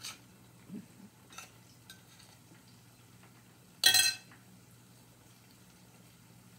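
Metal spoon clinking against a glass mixing bowl as mashed plantain dough is scooped out: a few light taps, then one sharp ringing clink about four seconds in, over a faint steady hum.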